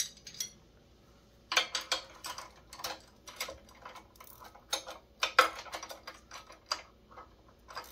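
Ratcheting wrench clicking in quick, irregular runs as an engine mounting bolt is cinched down onto the bracket, starting about a second and a half in.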